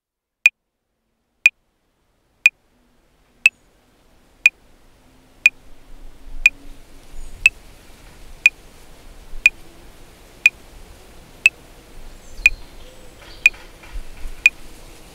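Metronome clicking at 60 bpm, one sharp click each second. Faint background noise fades in under the clicks from about four seconds in.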